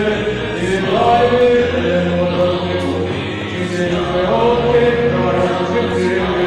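Male voices chanting an Eastern Orthodox liturgical hymn in long sustained notes over a low held drone.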